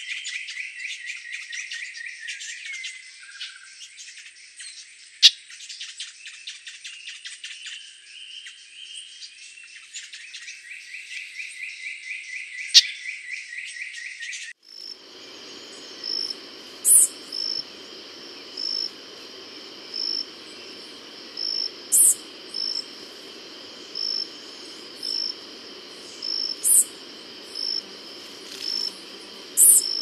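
Forest ambience of insects and birds: a dense, rapid insect trill until about halfway, when it changes abruptly to a high short note repeating at an even pace, about every two thirds of a second, with sharp, loud high bird chirps scattered over it.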